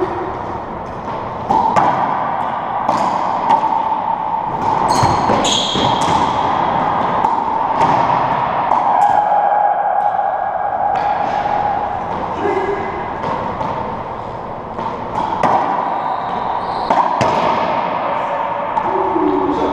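Racquetball rally in an enclosed court: about a dozen sharp racquet strikes and ball hits off the walls and floor at irregular intervals, each echoing, with a few short shoe squeaks, over a steady hum.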